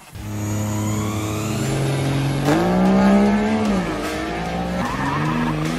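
Diesel drag-race pickup's engine running hard, then revving up sharply about two and a half seconds in, holding, dropping back a second later and rising again near the end.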